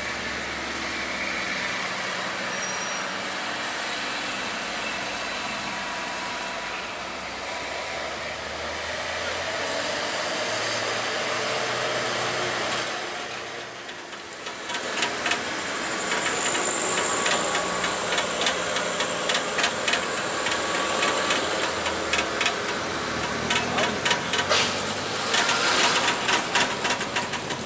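Vehicle engines running steadily at the roadside while a tow truck pulls a bus. After a sudden break about halfway through, the engine noise goes on with many sharp, irregular clicks and knocks.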